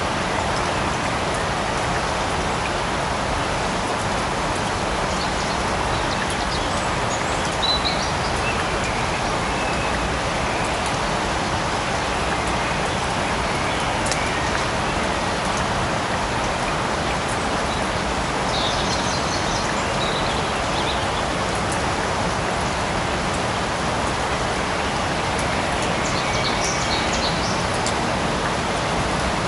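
Steady light rain falling in a forest, an even hiss of drops. A few faint high bird chirps come through about a third of the way in and twice more later.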